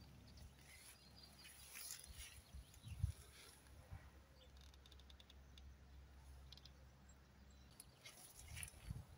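Near silence: faint outdoor background with a single soft knock about three seconds in.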